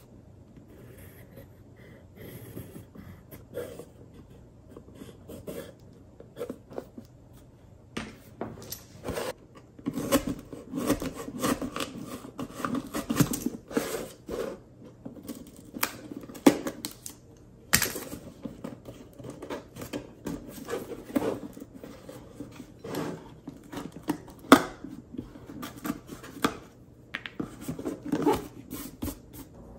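Pencil scratching faintly on paper over a cardboard box. Then, from about eight seconds in, a retractable utility knife cuts through the cardboard in short scraping strokes, with occasional sharp clicks.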